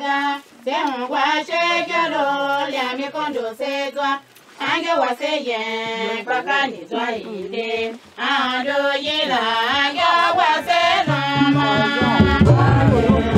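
A voice singing slowly in long held phrases, with short breaks for breath; near the end, lower voices join in.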